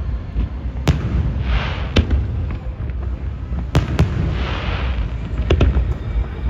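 Aerial fireworks going off: about six sharp booms over a continuous low rumble, two of them in quick pairs. A spell of crackling follows the second and the fourth bang, the sound of crackle-effect shells.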